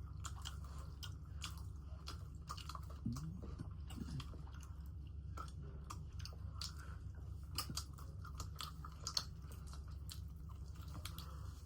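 Close-up mouth sounds of eating: chewing and biting with small crisp crunches and wet clicks coming irregularly throughout, over a steady low hum.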